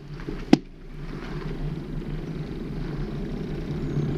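Low, steady rumble of a mountain bike rolling over pavement, picked up by a camera on its handlebars, with one sharp click about half a second in.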